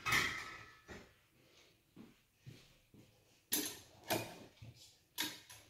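Kitchen handling noises: several short, sharp knocks and clatters as pots and utensils are moved about, the loudest at the start and in the second half.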